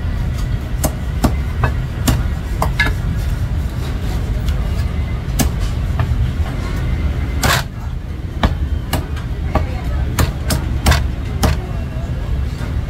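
Chinese cleaver chopping through a cooked chicken onto a thick wooden chopping block: a run of sharp, irregular chops, roughly one or two a second, with one heavier hit about halfway through, over a steady low rumble.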